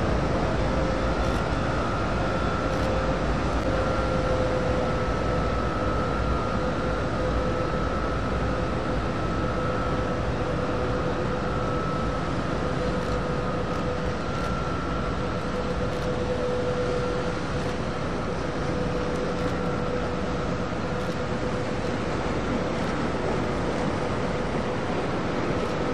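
Arleigh Burke-class destroyer passing close by, its machinery giving a steady drone with two steady whining tones over it.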